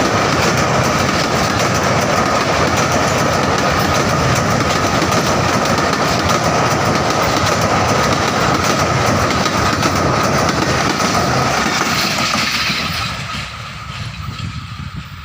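Rehman Baba Express passenger train crossing a river bridge: a steady loud clatter of wheels on track. It fades away about 13 seconds in.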